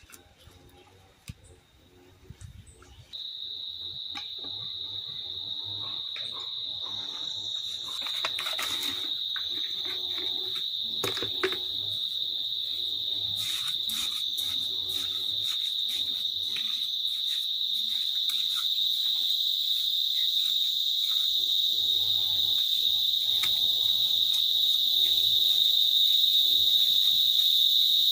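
An insect's steady high-pitched drone starts abruptly about three seconds in and grows gradually louder, with faint scrapes and knocks of a trowel working wet mortar.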